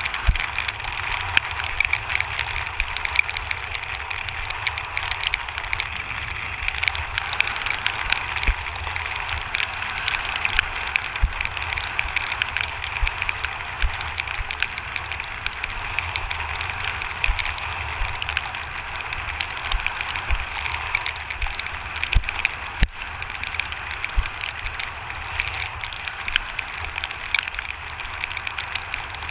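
Steady rush of wind and water with frequent irregular low thuds, from a camera riding with a kitesurfer over choppy water. Rain and spray spatter on the camera's housing.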